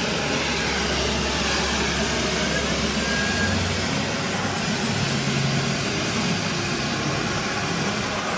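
Steady, loud rushing hiss of special-effects machines at work, blasting out rose petals and jets of white smoke. A low hum underneath drops away about three and a half seconds in.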